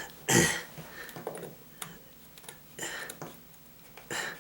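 Knife blade cutting and scraping into the wooden door frame in a few short strokes, with small ticks of wood chipping between them; the loudest stroke comes just after the start.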